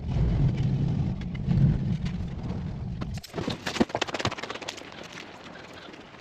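Skid steer engine running steadily, then cutting off abruptly about three seconds in, followed by a series of knocks and clicks.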